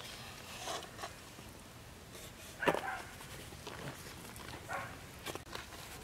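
A dog barks once, sudden and short, about halfway through, over faint short knocks and scrapes.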